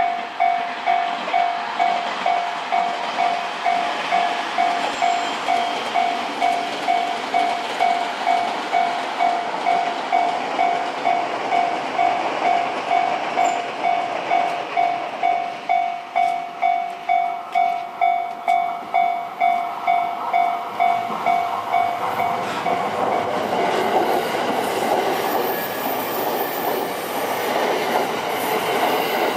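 Railway level-crossing warning bell ringing in a steady pitched ding about twice a second, stopping about 22 seconds in. A passing train's running noise then takes over, with wheel clatter near the end.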